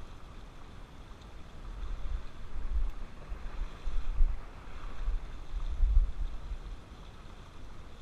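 Wind gusting on the microphone in low rumbling surges, strongest in the middle, over the steady rush of shallow river current.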